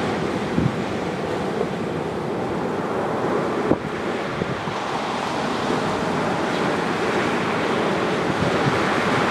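Surf washing steadily onto a sandy beach, with wind buffeting the microphone in low thumps. A single sharp snap a little over a third of the way in.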